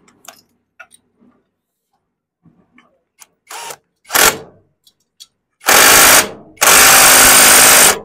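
A power tool spinning a socket on a long extension to tighten the clutch centre nut of a TVS Victor motorcycle engine: two short blips about three and a half and four seconds in, then two longer runs, the last about a second and a half long.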